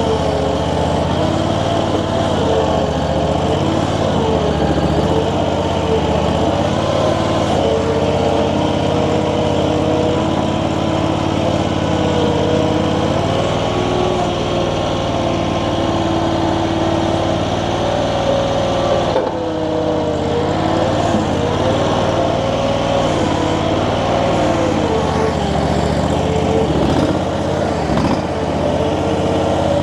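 Infront YF380 mini skid steer's engine running under load as the loader works dirt, its pitch wavering up and down, with a brief dip about two-thirds of the way through.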